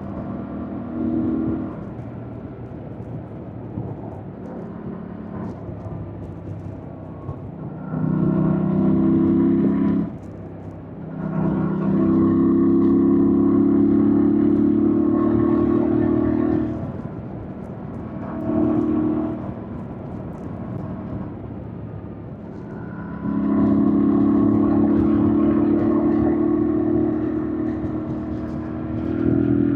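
2025 Yamaha MT-07's parallel-twin engine pulling hard under throttle in several stretches of a few seconds each, easing back to a quieter run in between, with a short dip about ten seconds in.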